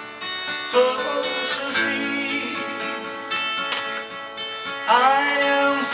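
Acoustic guitar playing a slow instrumental passage, with notes gliding up in pitch about a second in and again near the end.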